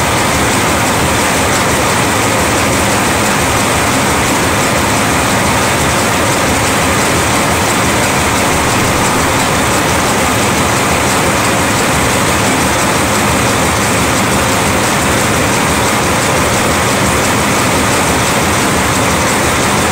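Double wire (Wire-O) forming machine running at high speed, a loud, steady mechanical clatter as it forms twin-ring binding wire at roughly 1,100 loops a minute.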